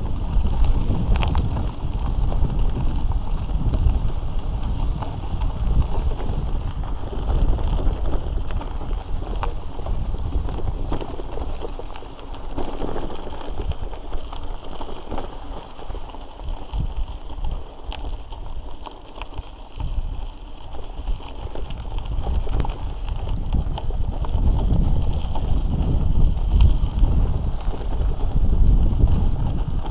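Wind buffeting the microphone over the rumble of a mountain bike's tyres on a gravel road, with scattered clicks and rattles from the bike and its handlebar bag. It eases off for several seconds in the middle.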